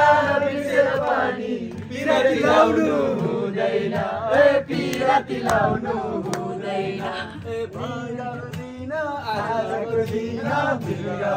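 People singing a Nepali folk song together, in a chant-like group style.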